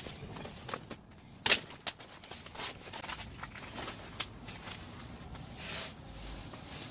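Rustling with scattered light clicks and knocks, as of things being handled; one sharp click about a second and a half in is the loudest.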